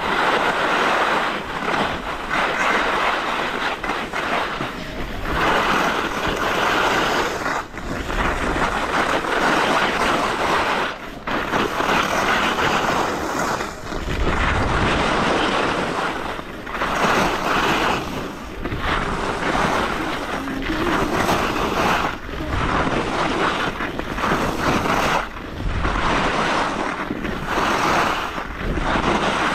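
Skis carving and scraping over hard-packed snow through a run of turns: a hiss that swells and fades every second or two. Wind buffets the action camera's microphone throughout.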